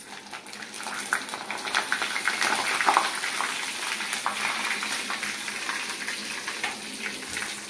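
Chopped ginger sizzling in hot oil with mustard seeds, asafoetida and cumin in a clay pot, a tempering, with many small crackles in the hiss. The sizzle builds over the first two or three seconds, then eases slightly.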